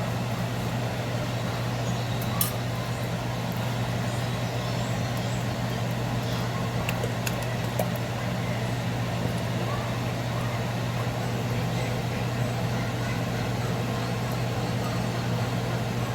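A kitchen appliance running with a steady low hum and whir, with a few faint clicks on top.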